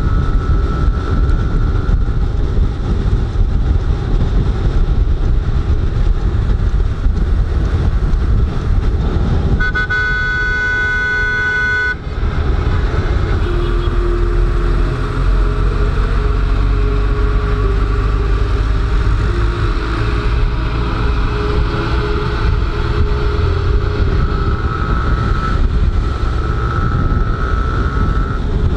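Wind buffeting the microphone over a motorcycle engine running at road speed. About ten seconds in, a vehicle horn sounds one steady blast of about two seconds.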